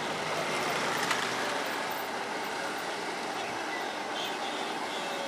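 Steady street traffic noise from motorbikes and cars moving across an open square, with a short knock about a second in.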